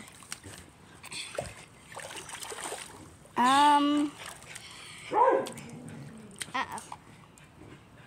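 Pool water splashing and dripping as a child climbs out onto the concrete edge, with a short, loud, high-pitched whine about halfway through and a shorter falling one a second later.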